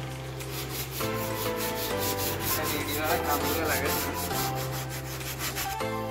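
Hand sanding of dried body filler on a car door panel with a sanding pad: a dry, repeated rubbing and scraping. Background music with slowly changing chords plays along.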